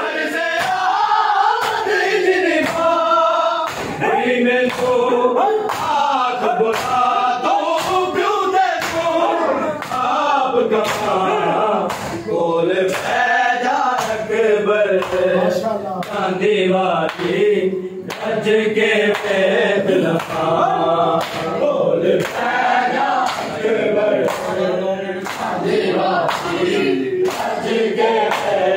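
A crowd of men chanting a noha in chorus while beating their bare chests in matam, the hand slaps landing about once a second in time with the chant.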